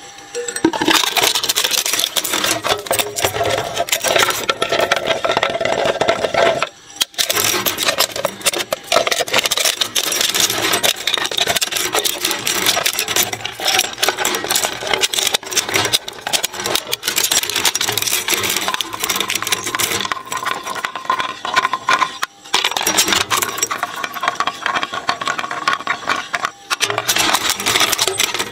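Twin-shaft shredder blades crunching and tearing a silver face mask, making a dense, continuous crackling and crunching with a few brief breaks.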